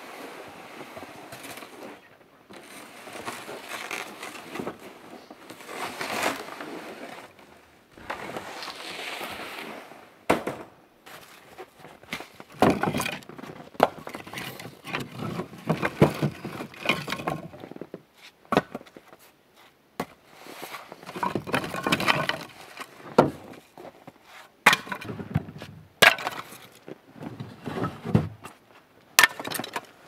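Snow crunching underfoot as a sled loaded with split firewood is pulled over it, then split firewood being handled and set down, giving a string of sharp wooden knocks and clatters.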